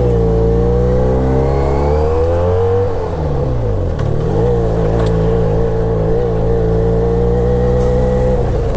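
Motorcycle engine pulling under acceleration, its pitch rising for about three seconds, dropping briefly as it shifts gear, then running at a steady speed.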